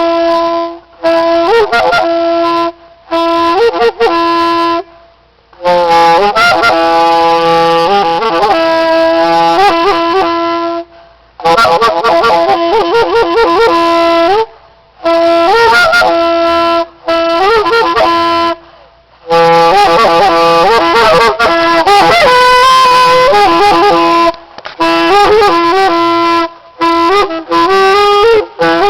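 Solo saxophone playing loud phrases of quick runs and long held notes, with short pauses between phrases.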